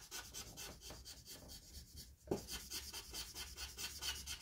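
Professional art marker rubbing back and forth on paper in quick, even strokes as an area is coloured in. There is a brief pause about two seconds in, then a short soft thud as the strokes resume.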